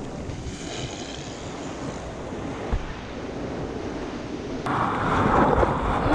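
Surf and whitewater washing around a surfboard, with wind buffeting the microphone. About two-thirds of the way through, a louder rush of water and spray takes over as the board moves through the water.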